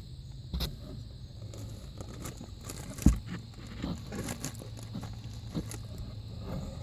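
Scratching and rustling on cardboard as a baby squirrel scrabbles about inside a box, with one sharper knock about three seconds in.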